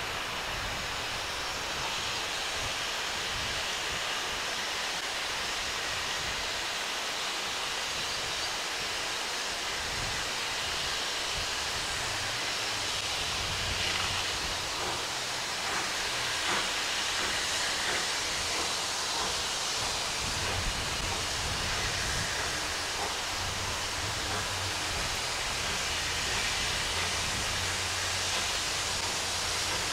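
Steam locomotive approaching slowly, with a steady hiss of steam. A low drone from the engine comes in about halfway through and grows as it draws nearer.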